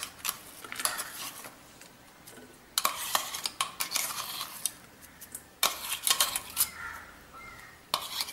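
Stainless steel mixie jar and steel bowl clinking and scraping as ground masala paste is tapped and scraped out, in four short bursts of clatter with quiet gaps between.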